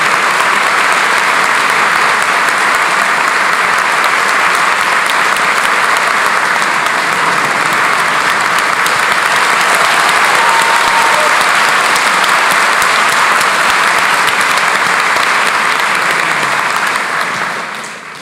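Audience applauding, steady and sustained, dying away near the end.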